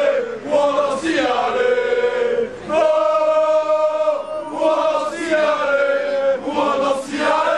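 Football supporters chanting in unison from the stands: a large crowd singing a terrace chant, with one long held note about three seconds in.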